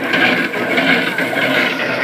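Drum paddy thresher running, its spinning drum beating a bundle of rice straw held against it. This makes a loud, harsh rustling thrash that rises and falls unevenly with the strokes.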